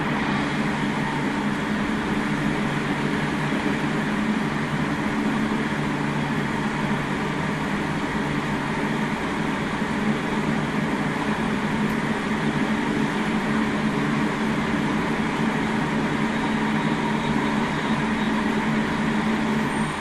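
Odakyu 3000 series electric train with Mitsubishi IGBT VVVF drive, running at a steady pace, heard as a continuous rumble with a low hum and no rising or falling motor whine.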